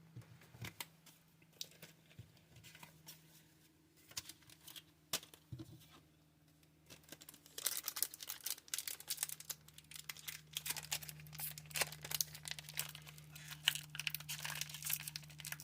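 Foil Pokémon booster pack wrapper being handled and torn open: a few scattered crinkles and clicks at first, then continuous crinkling and tearing of the foil from about halfway through.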